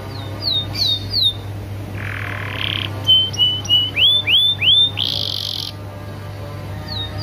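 Domestic canary singing a varied phrase: a few quick falling whistles, a short buzzy trill, a run of short level notes, then rising sweeps and a brief rattle. A steady low hum runs underneath.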